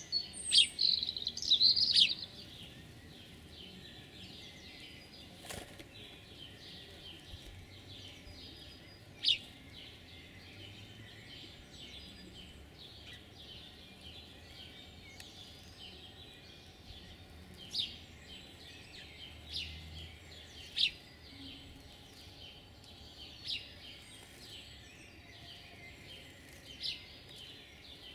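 Small songbirds chirping: a flurry of loud high calls in the first two seconds, then scattered sharp single chirps over a steady chorus of birdsong.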